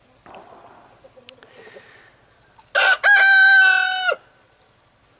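A cockerel crowing once, about three seconds in: a short loud first note, then one long held note that stops sharply. Faint clucking from the flock before it.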